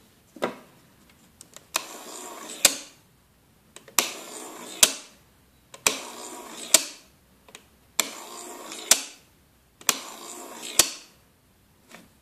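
Battery-powered KF-168 electronic fishing hook tier: its small motor and plastic gear wheel whirr in five bursts of about a second each, each starting and ending with a sharp click, as it winds the line around the hook.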